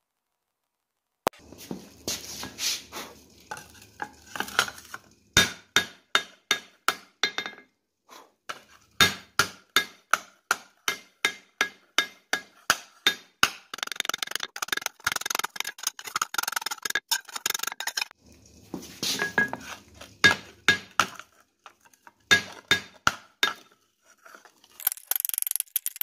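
Rounding hammer striking a hot skillet blank in the cup of a swage block: a run of ringing metallic blows at about two to three a second, with a quicker patter of lighter taps in the middle and a few short pauses, as the pan's lip is hammered up.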